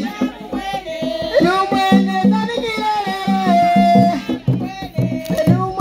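Women singing together over tall wooden hand drums with skin heads, beaten with the palms in a quick, steady rhythm.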